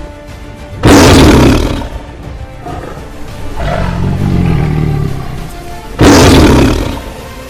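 Tiger roaring twice, about five seconds apart, each roar starting suddenly and loud and fading over about a second, over background music.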